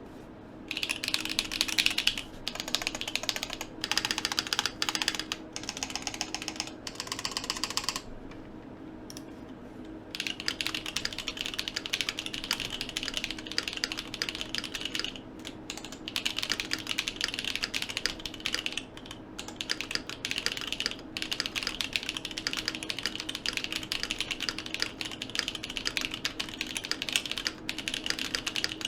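Typing on a 40% mechanical keyboard with Glorious Holy Panda tactile switches: a fast, continuous run of keystroke clacks, with a pause of about two seconds about a third of the way in.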